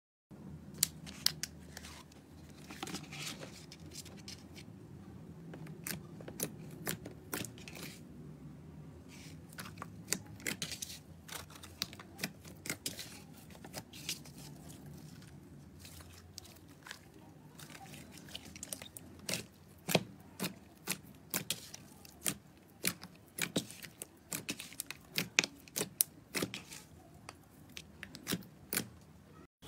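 Slime being squeezed and pressed by hand, giving off irregular sharp crackles, clicks and small pops, which come thicker and louder in the last third.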